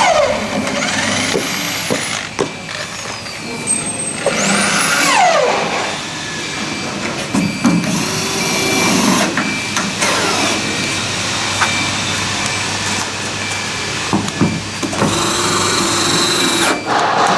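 Blue Elephant 1325 CNC router cutting acrylic: a steady machine whine and hum, with motor whines that sweep up and down in pitch several times as the axes speed up and slow down, mostly in the first few seconds.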